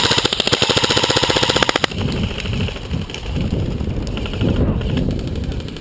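Airsoft gun firing on full auto: a fast, even stream of shots that stops about two seconds in, followed by fainter scattered shots.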